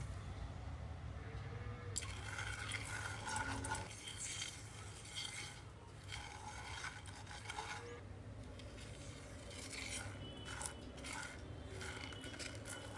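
Spatula scraping and stirring chana dal and poppy seeds as they dry-roast in a pan, an irregular scratchy rasping that starts about two seconds in, over a low steady hum.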